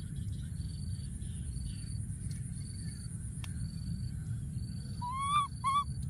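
A baby macaque gives two short, high-pitched calls rising in pitch about five seconds in, the first about half a second long and the second briefly after. Underneath runs a steady high insect drone and a faint chirp repeating about once a second, over a low rumble.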